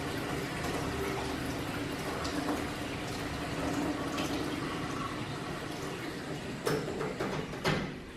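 Rinse water from a newly commissioned UrSpring filter running steadily out through the open drain valve, with two sharp knocks about a second apart near the end, after which the flow falls away as the valve is closed.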